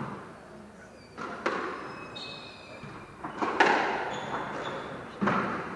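Squash ball being hit by rackets and striking the walls of a glass-backed squash court as a rally gets going: about five hard knocks that ring in the court, the loudest about three and a half seconds in, with a few short high squeaks of shoes on the wooden floor.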